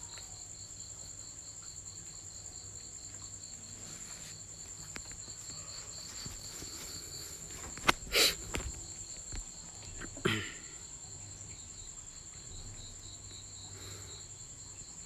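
Steady, high-pitched insect trill, cricket-like, with a second, pulsing chirp running lower down. A few sharp knocks sound around the middle.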